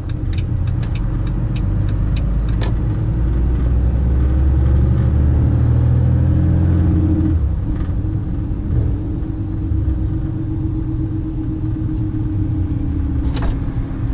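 Volvo FM 340 truck's diesel engine heard from inside the cab, pulling with its pitch and loudness rising over several seconds, then easing off about halfway through and running steadily.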